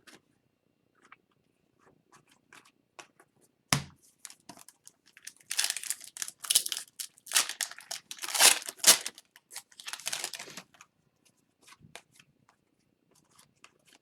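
Foil wrapper of a hockey card pack being torn open and crinkled, with a sharp knock about four seconds in and scattered small clicks of cards being handled.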